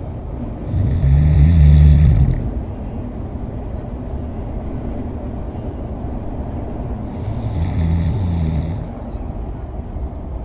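Two long snores about six seconds apart, each lasting a second and a half, over the steady low rumble of a car driving.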